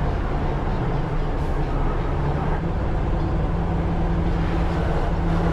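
Vehicle engine running steadily while driving, a low drone with road and wind noise.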